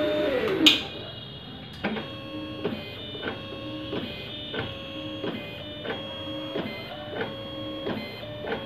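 Automatic paint tinting machine dispensing colorant into a bucket of base paint: a louder motor whir during the first second, then the dispensing pump running in an even rhythm of whirring strokes, each marked by a click, about every two-thirds of a second.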